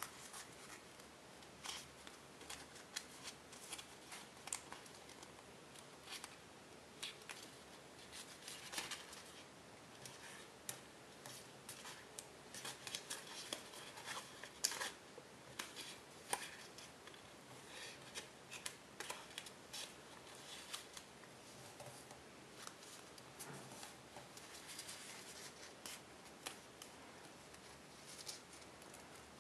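Sheet of tissue-foil origami paper being folded and creased by hand: faint, irregular crackling and crinkling with sharp little clicks as the foil is bent and pressed flat.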